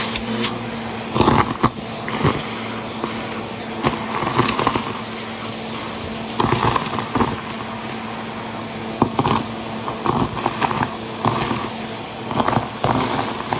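Vacuum cleaner running steadily while sucking up crunchy debris, with irregular bursts of crunching and rattling about a dozen times.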